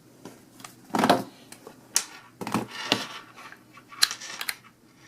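Handling noise: irregular clicks, taps and rustles as cables and small electronic devices are moved about, with sharper clicks about two seconds in and again about four seconds in.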